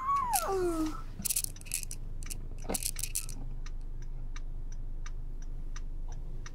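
Car turn-signal ticking evenly, about four clicks a second, over the steady low hum of the car cabin. A short falling vocal whine comes at the start, and rustling with a few knocks comes in the first three seconds.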